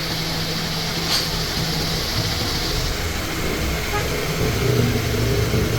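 Toyota Vitz engine idling steadily during A/C refrigerant charging, with one sharp click about a second in.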